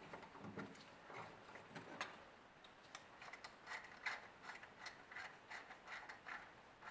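Faint, light metallic clicks and small scrapes from a hand tool working a fitting loose on a motorcycle carburetor. The clicks come irregularly and cluster more thickly in the second half.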